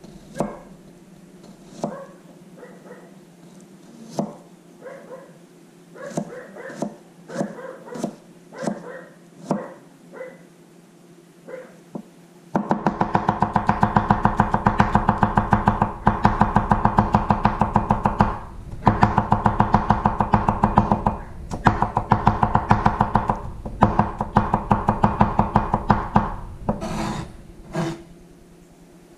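Chef's knife mincing garlic on a wooden cutting board. It starts with separate knocks, then about halfway in turns to fast, steady chopping with a few short breaks, which stops shortly before the end.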